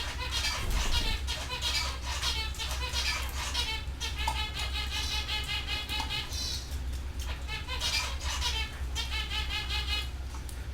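Canaries singing: several phrases of fast rolling trills and chirps, one after another. A steady low hum runs underneath.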